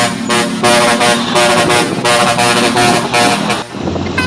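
Truck's musical multi-tone air horn blaring a quick run of pulsing notes that step up and down in pitch, cutting off abruptly near the end; a low steady hum follows.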